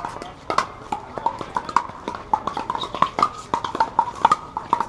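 Pickleball paddles hitting hard plastic outdoor balls (ONIX Pure 2) across many courts at once: an irregular stream of sharp pops, several a second, each with a brief ringing pitch.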